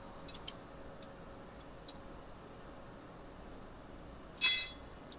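A few light metallic clicks as nuts are spun off a Bridgeport milling machine head with a wrench, then a single louder metal clank that rings briefly about four and a half seconds in.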